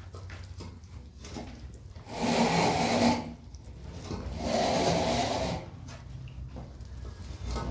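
Hands scooping white powder and working it into a wet mixture in a wide bowl: scuffing and rustling, with two louder swishes about a second long, one around two seconds in and one around four and a half seconds in.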